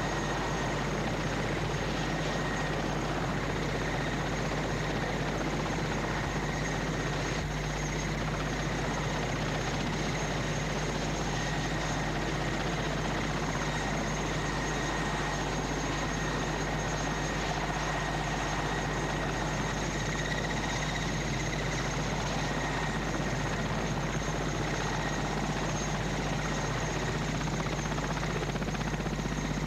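Transport helicopter running steadily on the ground: a constant whine over an even drone, with no change in pitch or level.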